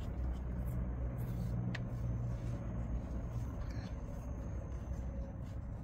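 Steady low background hum, with a few faint ticks and rustles of cotton macrame cord being knotted by hand.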